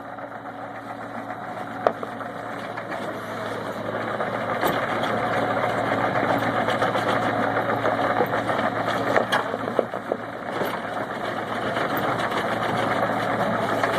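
Excavator's diesel engine running steadily as the machine is driven, growing louder over the first few seconds, with a few scattered metallic knocks.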